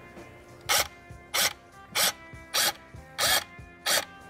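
Cordless drill with a very thin bit pulsed in short bursts against the metal pedal cover, about one and a half bursts a second, each a quick spin-up and stop, spot-drilling pilot marks for self-tapping screws.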